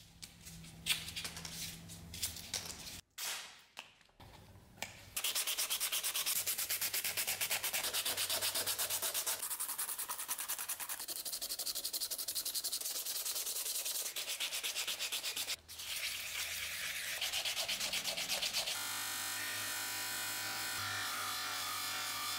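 Abrasive work on metal sword-hilt fittings: a Dremel rotary tool at first, then a long stretch of steady hand sanding with abrasive paper. About 19 seconds in, a bench grinder's motor hum joins as a fitting is held to its polishing wheel.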